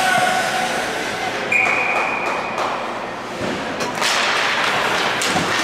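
Ice hockey rink ambience with crowd noise and a brief high tone about a second and a half in. About four seconds in, sticks and skates clatter on the ice as the puck is dropped for a faceoff.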